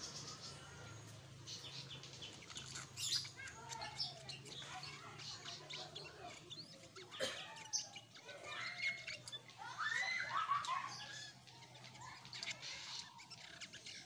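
Black-headed bulbul chirping: a string of short, sharp chirps and calls, with a louder burst of warbling, gliding phrases about ten seconds in.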